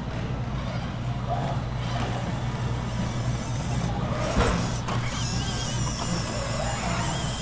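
Small electric motor and drivetrain of a 1/18-scale Traxxas TRX-4M RC crawler running over a steady low hum, with a wavering high whine in the second half and a single sharp knock about four and a half seconds in.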